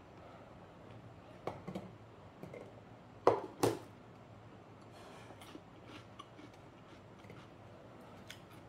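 Tableware being handled at a table: light clicks of a plastic food container and its lid, with two sharp knocks close together a little past three seconds in.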